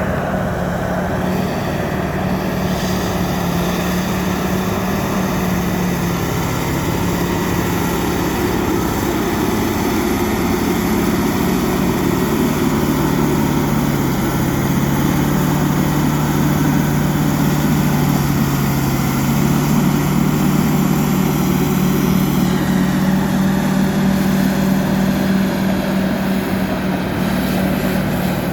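Diesel engine of a Fiat-Kobelco crawler bulldozer running steadily at work, its note dropping lower about halfway through and climbing again in the last few seconds.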